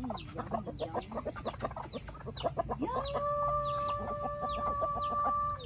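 A flock of backyard chickens clucking busily, with high falling chirps repeating throughout. About three seconds in, one long call at a steady pitch rises in and holds for over two seconds: a rooster crowing.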